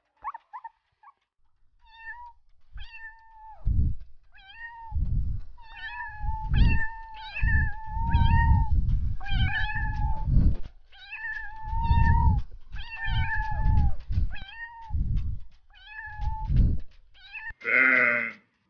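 A cat meowing over and over, about fifteen short, high, fairly even-pitched calls, with a low rumble under them. Just before the end a short, different, noisier animal call begins.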